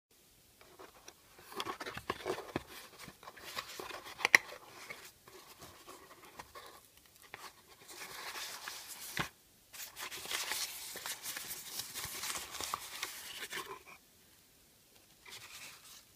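Cardboard box and its packing handled and opened by hand: irregular rustling, scraping and crinkling with sharp clicks, the loudest about four seconds in, and a longer stretch of steady rustling from about ten to fourteen seconds.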